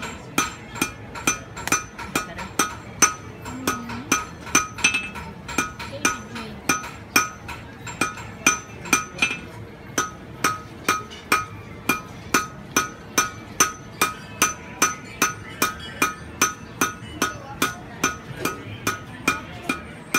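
Blacksmith's hand hammer striking hot iron on an anvil in a steady rhythm, about two to three blows a second, each blow ringing brightly like metal.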